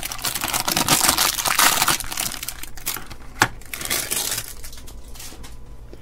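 Clear cellophane bag crinkling as it is pulled off a plastic cable tester and its paper manual, loud for the first two seconds and then softer. A single sharp knock comes about three and a half seconds in.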